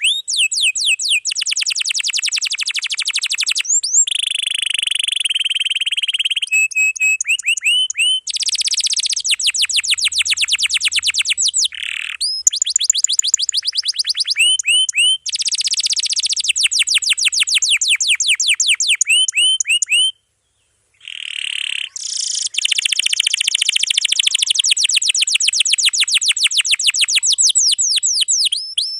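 Domestic canary singing a dense song of long, rapid rolls: fast trains of repeated rising chirps, high-pitched and nearly unbroken. The song breaks off briefly about two-thirds of the way through.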